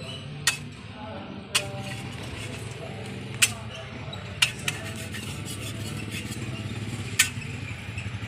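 Metal spatula clinking against a steel crepe griddle, about six sharp clinks a second or two apart, over a steady low hum.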